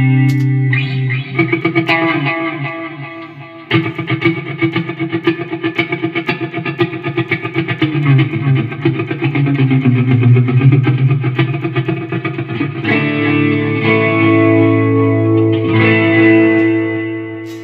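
Electric guitar played through a Line 6 Helix multi-effects processor, which is passing sound normally on a test after repair. Ringing chords fade out, rapid picked notes start about four seconds in, and a held chord rings out and fades near the end.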